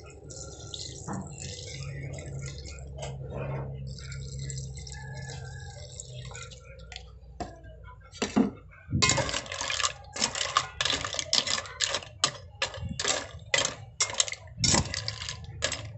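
Water pouring steadily into a metal pot of mussels. About nine seconds in, a quick irregular clatter of mussel shells starts, knocking against each other and the pot as a metal spoon stirs them.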